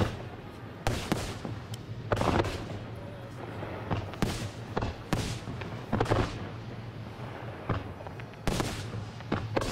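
Fireworks display: a string of sharp bangs, roughly one a second and some in quick pairs, as fans of gold comets are launched from the ground.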